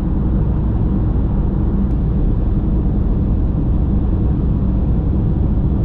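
Steady drone of a vehicle under way: engine and road noise with a low hum.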